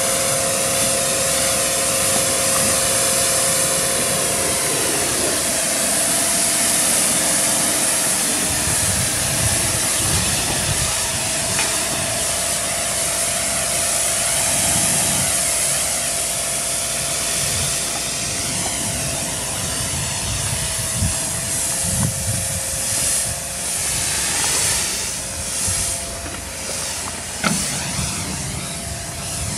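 High-pressure washer jet spraying water onto a truck's painted metal cab and chassis: a loud, steady hiss, over a constant hum from the washer's pump. Near the end the spray turns uneven, with a single knock.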